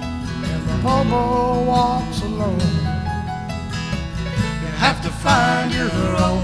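Instrumental break of a country-folk song: acoustic guitar strumming under a sliding melody line.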